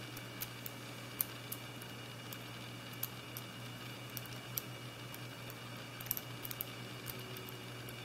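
Faint, irregular metallic clicks and scrapes of a lock pick working the pins inside a Soviet padlock's keyway under a tension wrench, with a quick cluster of clicks about six seconds in. A steady low hum runs underneath.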